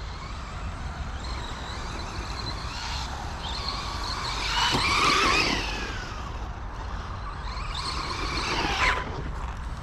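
FTX Crossbow 1/10 brushless RC truggy driving, its motor whine and tyre noise rising and falling with the throttle, loudest about five seconds in.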